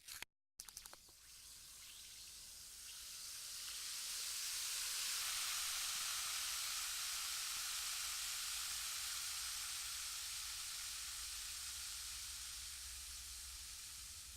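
A few clicks, then a steady hiss of water in a bathroom fixture. It builds over the first few seconds and slowly fades away.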